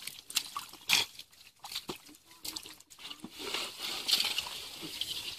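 Wet mud squelching and water sloshing as feet and hands move through a muddy pond bed, with scattered sharp wet clicks and splats, the loudest about a second in.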